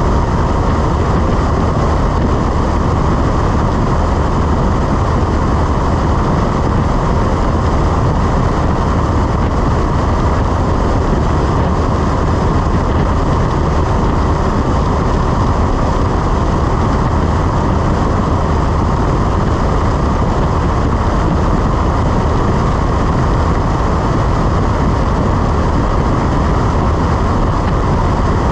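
Cessna 172's piston engine and propeller running steadily in flight, a constant low drone with an even rush of noise over it.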